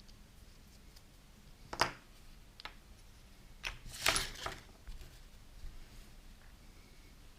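Small clicks and scrapes of tiny RC differential parts being handled and fitted by hand, with a sharp click just under two seconds in and a short clatter of several clicks around four seconds in.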